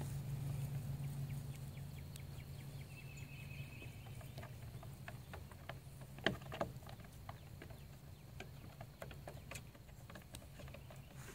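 Small hooves of Nigerian Dwarf goat kids tapping and clattering on a wooden cable-spool tabletop and plank ramp: an irregular scatter of sharp knocks, the loudest about six seconds in. A steady low hum runs underneath.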